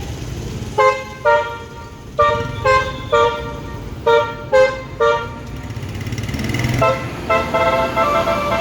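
Tour bus basuri 'telolet' multi-tone air horn playing a melody: eight short blasts, then a quicker run of notes near the end, with a low engine rumble beneath.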